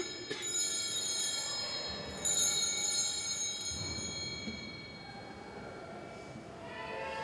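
Altar bells (sanctus bells) shaken twice, about two seconds apart, each ring leaving high tones that die away over several seconds: the bells marking the elevation of the chalice at the consecration of the Mass.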